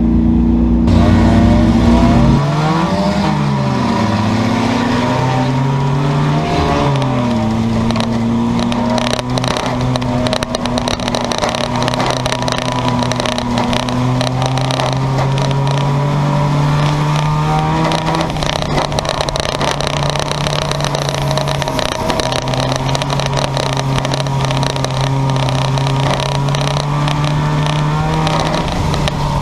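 Engines of junkyard race cars running on the track. Their pitch rises and falls a few times in the first eight seconds, then holds a steady drone with small swells.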